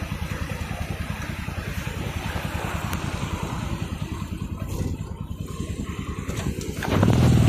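Motorcycle engine running steadily with a rapid, even firing beat, growing louder about seven seconds in.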